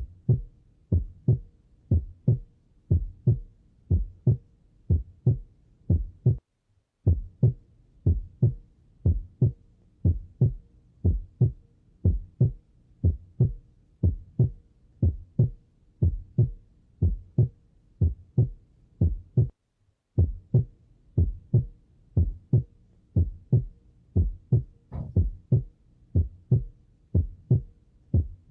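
Recorded human heart sounds: a regular run of short, low thumps, about two to three a second, that cuts out briefly twice.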